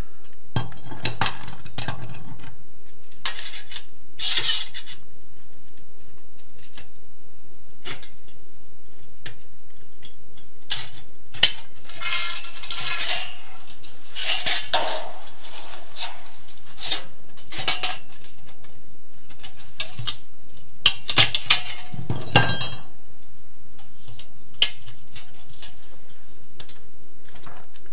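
Sheet-steel drywall profile being cut with tin snips and handled: irregular metallic clicks, clinks and snips, with longer scraping stretches about twelve seconds in and again about twenty-two seconds in.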